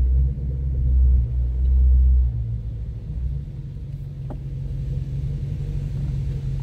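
Chrysler 300's engine and road rumble heard inside the cabin while driving. A deep low rumble eases off about two and a half seconds in, leaving a steady engine hum.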